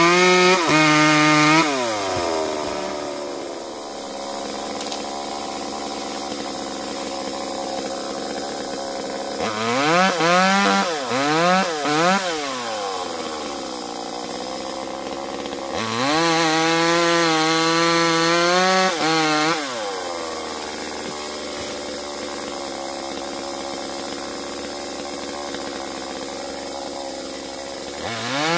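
Chainsaw engine switching between full throttle and idle. It runs at high revs at first and drops to idle about two seconds in. Around ten seconds it is revved in several quick blips, is held at high revs for a few seconds past the middle, idles again, and revs back up at the end.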